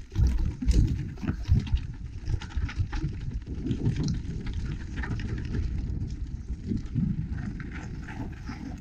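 Mountain bike riding down a rough dirt trail, heard from a camera on the rider: tyres rattling over stones and roots, with repeated knocks from the bike and a heavy low rumble. The jolts are hardest in the first couple of seconds, then settle into a steadier rolling noise as the bike reaches flat gravel.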